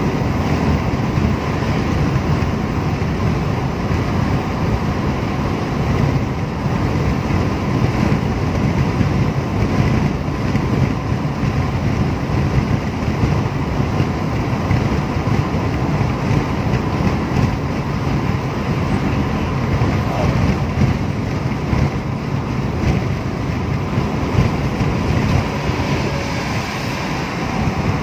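Steady road noise inside a car's cabin at expressway speed: tyres on the pavement and wind, heavy in the low end.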